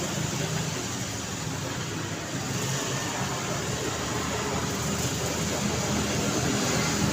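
Street traffic: steady road noise of passing cars and engines, growing slightly louder over the last few seconds.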